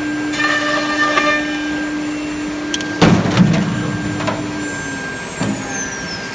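ATC CNC router with a gang drilling head running, a steady motor hum with a higher whine, then a loud clunk about three seconds in and a few lighter knocks. Near the end a high whine falls in pitch as a spindle slows.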